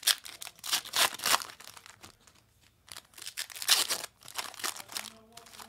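Plastic trading card wrapping crinkling and tearing in several separate bursts with short pauses between them, as a box or pack is opened by hand.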